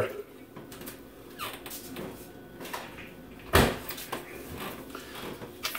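A door squeaking amid faint small movement sounds, with one sharp thump about three and a half seconds in.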